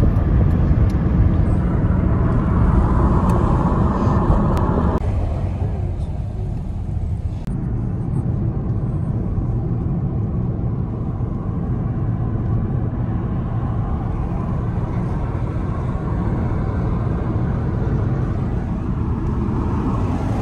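Steady road and engine noise heard from inside a moving car's cabin, a low rumble with a hiss above it; the upper hiss drops off suddenly about five seconds in.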